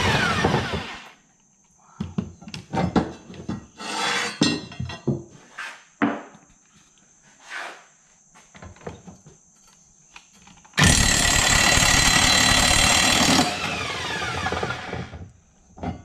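Cordless impact wrench undoing the mower deck's blade bolts. A burst right at the start dies away with falling pitch. Scattered knocks and clicks of the blade and hardware being handled follow. Near the end comes a second, longer hammering run of about two and a half seconds, which eases off and winds down as the bolt comes free.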